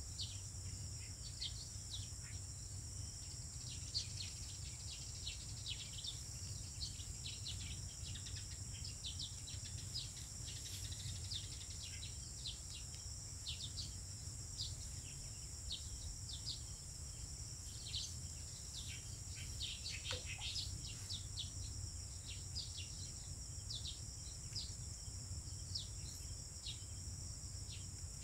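Rural outdoor ambience: a steady high-pitched insect drone, with many short falling bird chirps scattered throughout and one longer falling call about two-thirds of the way in, over a low steady rumble.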